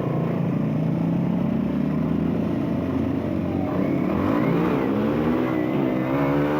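Engine of a 125cc supermoto motorcycle running under way, steady at first, then revving up and down several times from about four seconds in.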